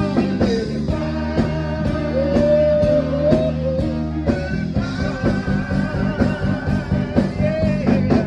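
A live band and vocalists performing a soul song: singing over a steady drum beat and bass line.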